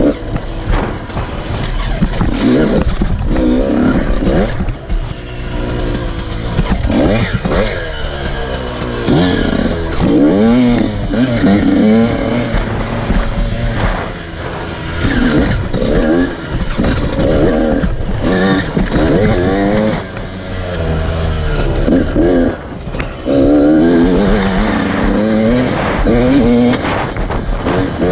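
Enduro dirt bike engine, close up from a helmet-mounted camera, revving up and dropping back again and again as the throttle is worked and gears are shifted along a twisting trail. The engine pitch climbs and falls every second or two, with a few short dips where the throttle is rolled off.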